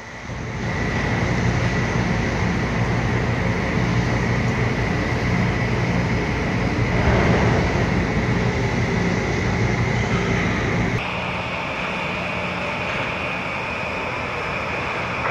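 Steady machinery drone on a container ship working cargo in port: a low hum with a steady high whine over it. About 11 seconds in it changes abruptly to a slightly quieter, similar hum with a higher whine.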